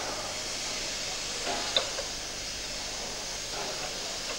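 Steady hiss of steam from a standing Škoda-built 2-8-0 steam locomotive of class 434.1, with no exhaust beat. There is one faint click a little under two seconds in.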